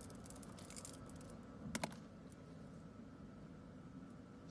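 Light clicks of a thin metal tool and loose conch pearls tapping against each other on a felt pad: a scatter of faint clicks in the first second and a short cluster of louder clicks a little under two seconds in.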